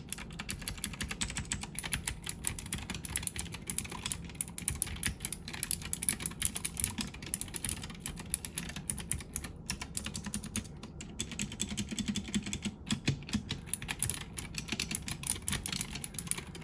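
Fast typing on a Womier K66 mechanical keyboard with clicky Gateron Blue switches: a dense, steady run of key clicks with a few brief pauses.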